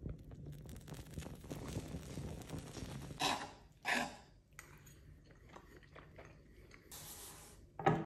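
Flaming liqueur sizzling and hissing as it is poured for crepes Suzette. Then come two short crunches about a second apart as the caramelised crepes are cut with a knife and fork on a slate plate.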